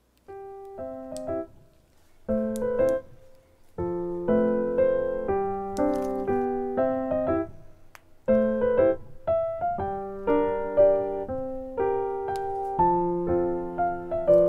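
Light background music played on piano or keyboard, a bouncy melody in short phrases. It comes in just after the start out of near silence, with brief pauses between the early phrases.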